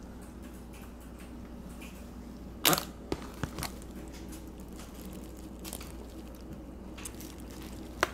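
Eating-table handling sounds: a few sharp clicks and knocks, the loudest about two and a half seconds in, with smaller ones after, over a steady low hum.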